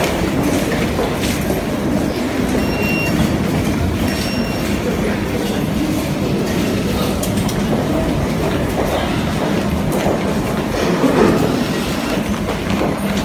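Suburban electric commuter train running on its rails, a steady, even noise of wheels on track.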